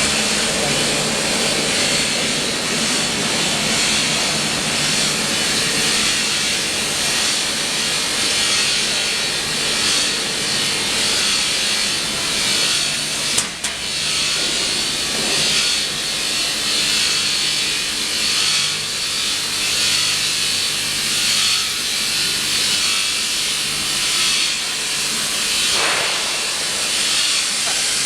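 Automatic circumferential welding machine welding a tank seam: a loud, steady crackling arc hiss with a machine hum beneath, broken by one sharp click about halfway through.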